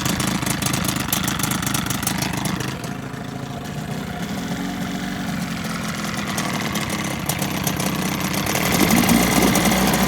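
1980 Evinrude 15 hp two-stroke outboard motor running cold, soon after a choked pull start; its level sags about three seconds in and picks up again near the end.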